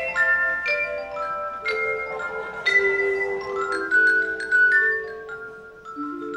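Instrumental music on tuned mallet percussion: quick runs of struck, ringing notes climbing and falling, several sounding together.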